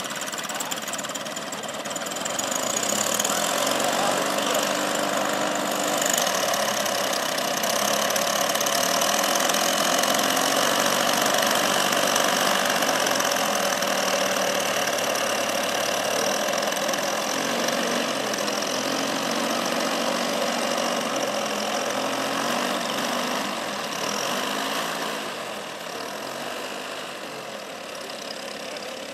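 Engine of a large-scale RC model WWI biplane running at idle and low throttle, the note rising and falling a little. It gets louder about two seconds in and fades near the end as the model taxis away.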